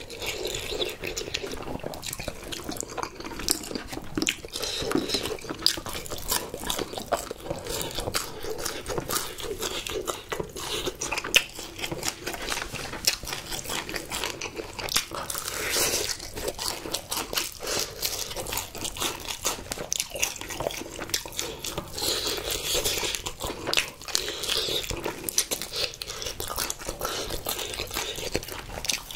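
Close-miked chewing and crunching of sauce-glazed spicy fried chicken, a continuous run of crisp crackles from bite after bite.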